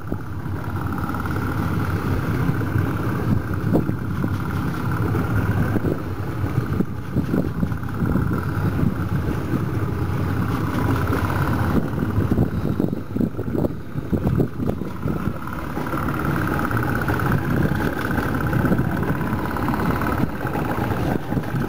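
Fishing boat's engine running steadily under wind and water noise, with scattered knocks.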